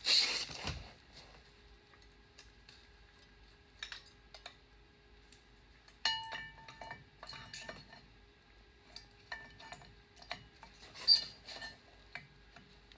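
Metal parts being handled: scattered clinks and knocks, with clusters of sharper metallic strikes about six seconds in and again near eleven seconds, some ringing briefly. It opens with a loud rustle of handling.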